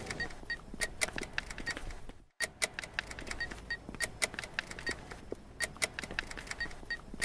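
Excerpt of a student electroacoustic soundscape composition: a dense, irregular patter of sharp clicks and taps, many with a brief high ping, broken by a moment of complete silence a little over two seconds in.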